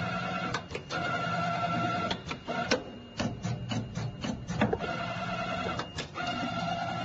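CNC bending machine feeding stainless steel strip through its rollers during a feed-length calibration test. A steady motor whine comes in stretches of about a second, broken by sharp clicks and knocks, with a run of clicks near the middle.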